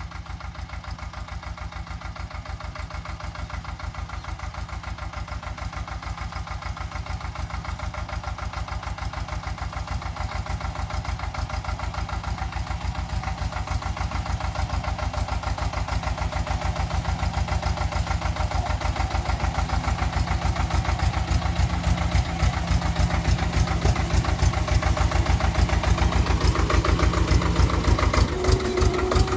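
Sonalika Baagban DI-30 RX compact tractor's diesel engine running with a steady, even chugging as it ploughs along a row, growing louder as it comes closer. Near the end the engine note changes.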